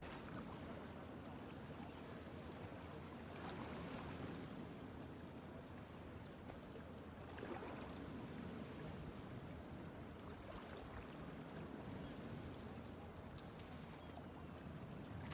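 Small waves lapping against a rocky shore, a steady wash of water noise.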